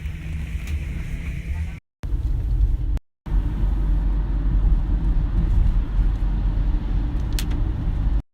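Steady low rumble of a moving vehicle heard from inside it, in three short clips separated by abrupt cuts, with a brief click near the end.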